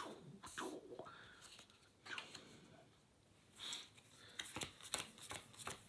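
Playing cards being handled on a cloth playmat: scattered light slides, flicks and taps as cards are laid down and drawn, with a quicker run of taps near the end.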